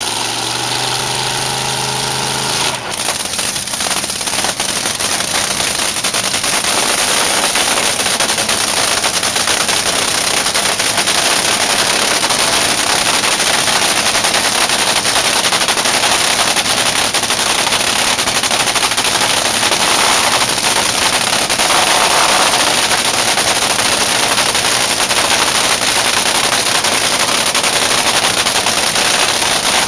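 Top Fuel dragster's supercharged nitromethane Hemi V8 running during warm-up, a loud, harsh crackling rattle. About three seconds in it changes sharply from a steadier pitched drone to the full crackle, which builds a little louder over the next few seconds and then holds.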